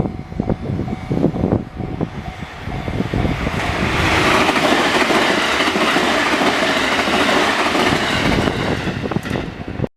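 Train passing, its wheels clattering over rail joints in a rumbling rhythm, then a louder steady rush of wheel-on-rail noise from about four seconds in; the sound cuts off suddenly near the end.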